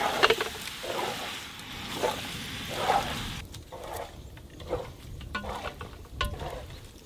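Chicken mince sizzling in a large aluminium pot as it is stirred with a spatula, scraping strokes about once a second. The sizzle drops away about halfway through, leaving only occasional scrapes and clicks.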